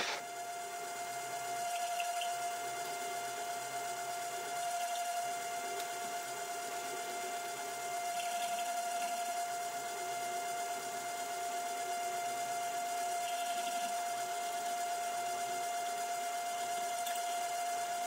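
DIY micro lathe, its spindle a CNC rotational axis, running with a steady whine while a 5 mm drill in the tailstock feeds into a spinning aluminium rod, dry with no coolant, to make a through hole. Faint cutting sounds come and go over the whine.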